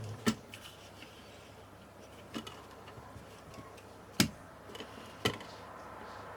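Four sharp clicks and knocks, spaced a second or two apart, from the small camping light being handled and turned round on the workbench during a switch repair.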